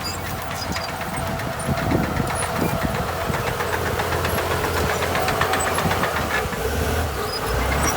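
A heavy diesel engine of earthmoving machinery runs steadily. Over it, a rapid clatter of metallic rattles and knocks builds up after about a second and a half and fades out after about six seconds.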